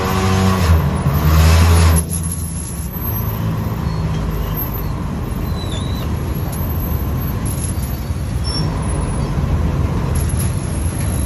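Ferry engine running, loud for the first two seconds and then easing off suddenly to a steady low rumble as the boat comes in to the landing.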